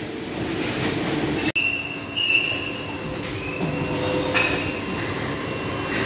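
Factory-floor noise of running plastic injection moulding machines: a steady mechanical hum with high whining tones that come and go. The sound drops out for an instant about one and a half seconds in.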